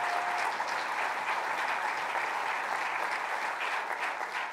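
Audience applauding steadily, a dense mass of hand claps that eases off near the end.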